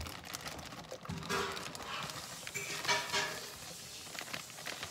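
Baby carrots pouring out of a plastic bag and tumbling into an enamel roasting pan, with the bag crinkling, in two pours about a second in and about three seconds in.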